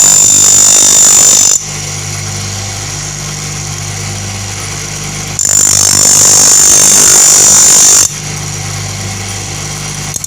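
Electric grinder motor running steadily while a cutter blade is ground against the wheel. There is a loud, high grinding hiss at the start and again for about three seconds in the middle, and only the motor's hum between.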